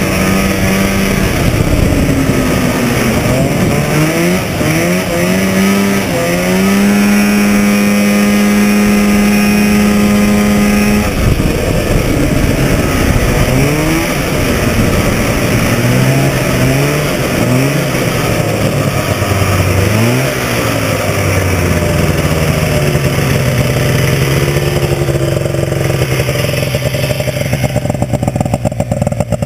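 1970 Scorpion Stinger 640 snowmobile's two-stroke engine running under way. It revs up and down, holding a steady high pitch at full throttle for about four seconds from around seven seconds in. After that come repeated rising and falling revs, settling to a steadier, lower pitch over the last several seconds.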